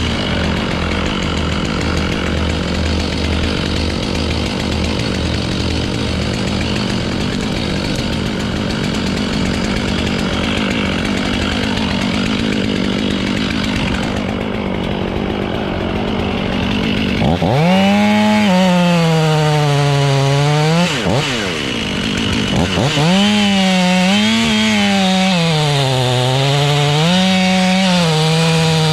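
Two-stroke chainsaw running. About two-thirds of the way in come two loud spells where its engine note dips and climbs again and again as the saw bogs and recovers in the hard black locust wood.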